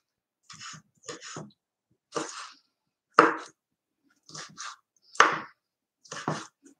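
Kitchen knife chopping pitted olives on a wooden cutting board: irregular knocks of the blade against the board, about one or two a second, with two much louder chops about three and five seconds in.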